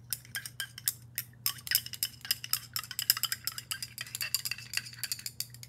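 Stirring rod clinking rapidly and irregularly against the inside of a small glass beaker, several clinks a second with a bright ring, while stirring to dissolve copper(II) chloride in water.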